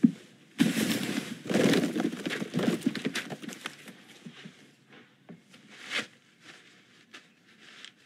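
Paper and twine rustling and crackling as bundled mail is handled, loudest through the first few seconds, then a few scattered light knocks and footsteps.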